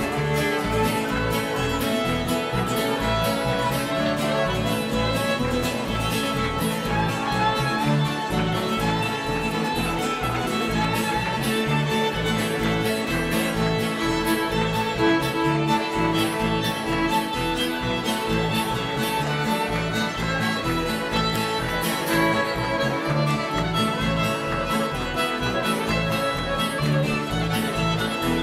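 Live bluegrass string band playing an instrumental fiddle tune: two fiddles carrying the melody over upright bass, strummed guitar and mandolin, with a steady bouncing beat.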